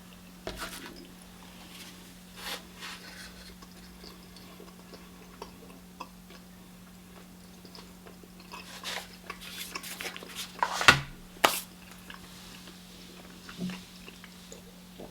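A person chewing a soft, sugary Turkish delight sweet, with scattered wet mouth clicks and smacks that are busiest in the second half, over a steady low hum.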